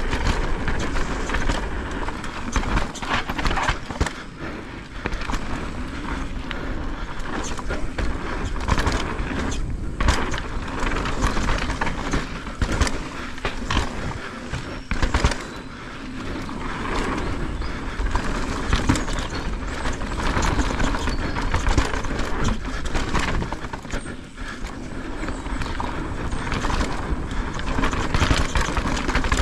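Santa Cruz Megatower full-suspension mountain bike ridden down a rough trail: steady tyre noise over dirt and rocks, with many knocks and rattles from the bike over the bumps.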